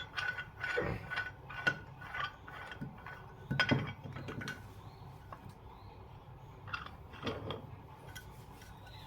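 Metal clicks and clinks of a homemade bearing puller being fitted and worked on a ceiling fan motor's bearing: several quick ringing taps, a louder knock about three and a half seconds in, then a few scattered clicks.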